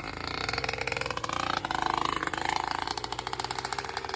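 Small engine running with a rapid, even firing beat. Its pitch rises over the first couple of seconds as it revs, then holds steady.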